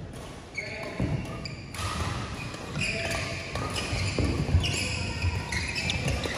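Court shoes squeaking and feet landing on an indoor badminton court as a doubles rally gets under way, with a sharp racket hit on the shuttlecock.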